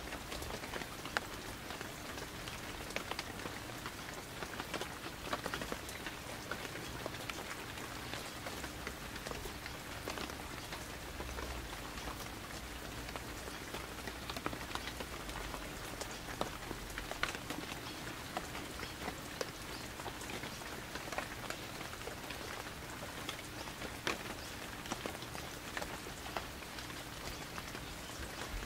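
Steady rain falling, with many separate drops tapping sharply on nearby surfaces.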